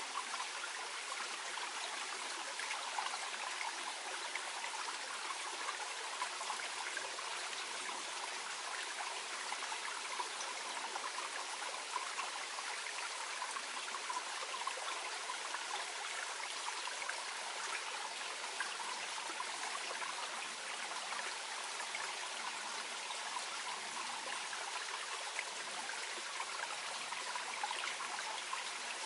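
Small mountain stream burbling and trickling over stones in a gentle, steady flow.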